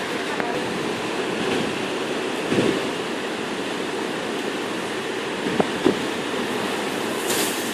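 Strong storm wind rushing steadily, with a few brief thumps about two and a half and six seconds in.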